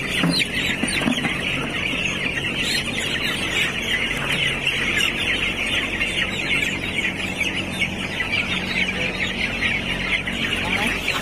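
A large flock of 12-day-old broiler chicks peeping continuously, many high chirps overlapping into a steady chorus.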